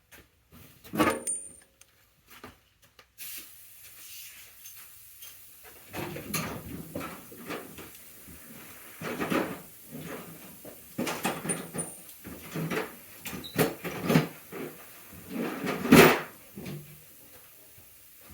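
Irregular knocks and clatter of things being handled and set down, with no steady rhythm; the loudest thumps come about a second in and near the end.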